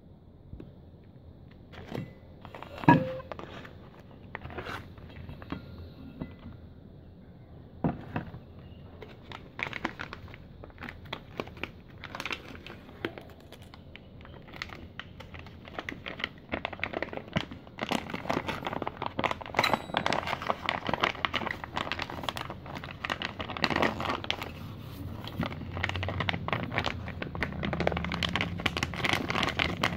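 Foil retort pouch of MTR Masala Rice crinkling and rustling as it is handled and squeezed to push the rice out, growing denser and louder in the second half. A sharp knock about three seconds in is the loudest sound.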